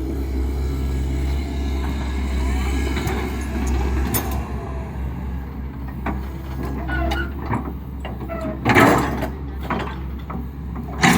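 Excavator's diesel engine running steadily under load while the machine moves. A loud noisy burst comes about nine seconds in and a shorter one near the end.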